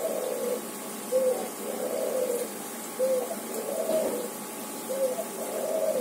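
A dove cooing over and over, a short note then a longer wavering one, about every two seconds.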